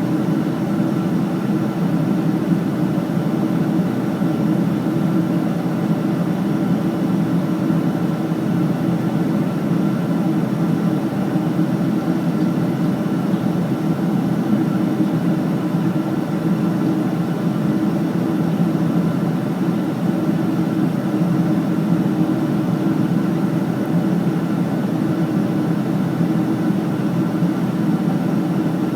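Steady drone of an airliner cabin in flight: jet engine and airflow noise, even throughout, with a few faint steady tones above it.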